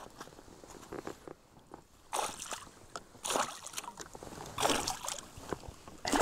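Water splashing and sloshing at the side of a small boat in three short bursts about a second or so apart.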